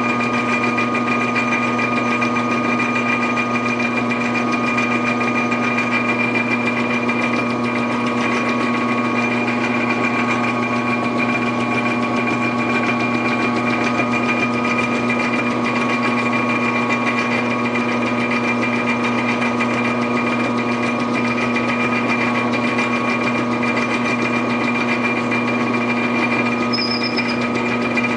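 Metal lathe running steadily while a twist drill in the tailstock chuck bores into a spinning brass workpiece: a constant machine hum with a few fixed tones.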